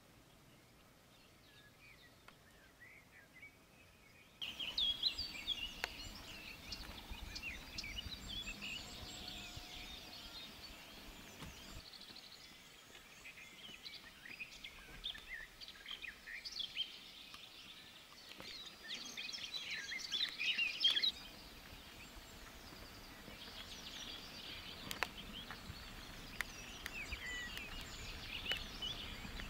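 Several wild birds singing and chirping together in many short, quick rising and falling calls. It begins abruptly after about four seconds of near silence, grows louder, drops back suddenly later on, and has a few sharp clicks.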